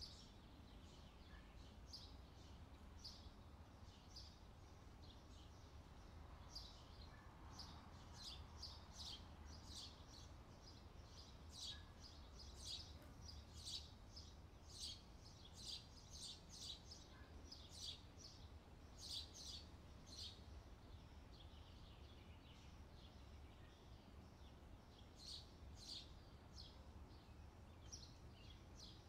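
Faint bird chirping: many short, high chirps in quick runs, over a faint low steady hum.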